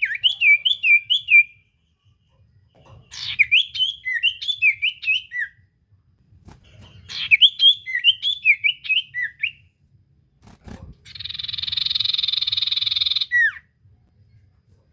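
Common iora (cipoh) singing: three phrases of quick, zigzagging whistled notes, each about two seconds long, then a harsh buzzing note of about two seconds that ends in a single down-slurred whistle.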